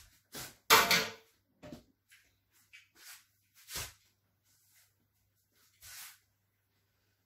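A few separate knocks and rustling bumps of household handling, the loudest about a second in, then softer ones at intervals.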